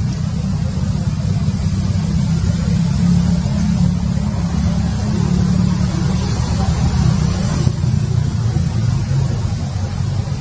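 Steady low rumble with no clear pitch, rough and unbroken, a little stronger in the middle.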